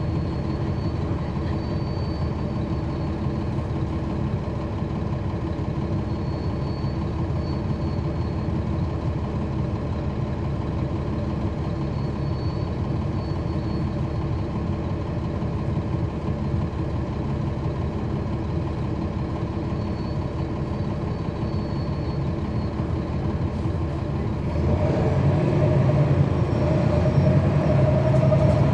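A Cummins ISL9 diesel engine in a NABI transit bus, heard from inside the cabin, running steadily at idle. About 24 seconds in it grows louder and a rising whine comes in as the bus pulls away.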